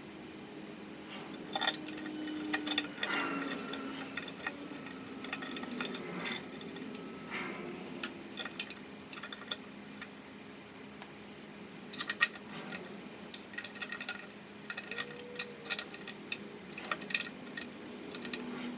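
Irregular metal clicks and clinks of an Allen key and small Allen-head bolts and washers being handled and fitted into an aluminium intake manifold, in scattered clusters.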